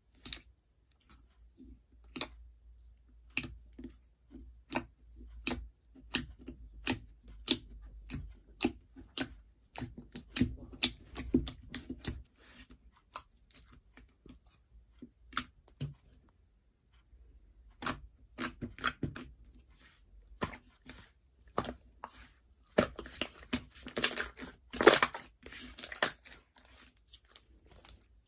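Slime being handled: squeezed, stretched and pressed, giving irregular sticky clicks, pops and crackles, with a denser, louder run of crackling about 23 seconds in.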